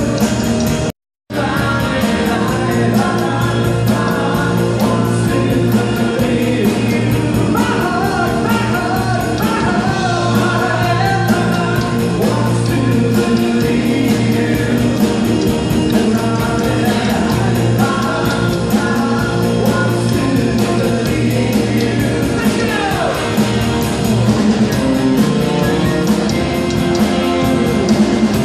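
Live rock band playing: electric guitar and bass over a drum kit, with singing. The sound cuts out briefly about a second in.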